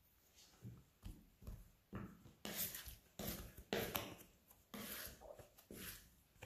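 Plastic dough scraper scraping soft, sticky bread dough off a stainless-steel work surface in a run of short, irregular scrapes, faint at first and busiest in the second half.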